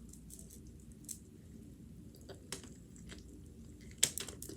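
A person chewing a taco close to the microphone: soft, scattered mouth clicks and smacks, with one sharper crunchy bite about four seconds in.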